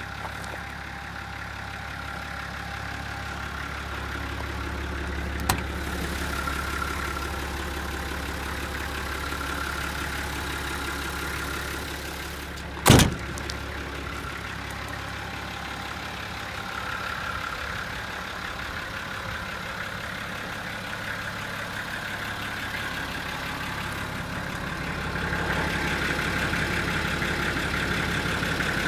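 Isuzu Journey minibus's TD42 4.2-litre six-cylinder diesel idling with a steady hum. There is one sharp knock about halfway through. The idle is louder for the last few seconds.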